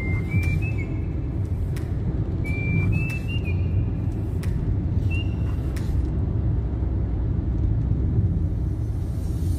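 Steady road and engine rumble of a car driving along a highway, with a few short high whistling tones in the first half.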